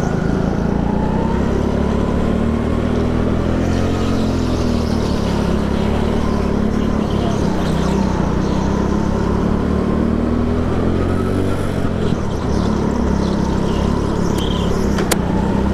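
Onboard sound of a rental go-kart's engine under way, running steadily while its pitch rises and falls gently through the corners. A single sharp click comes near the end.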